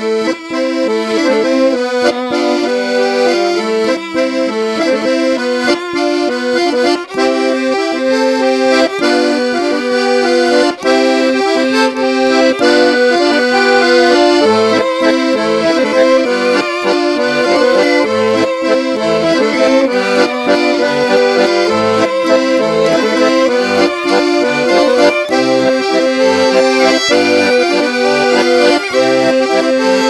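Instrumental music carried by an accordion, playing a tune over sustained chords, with no voice.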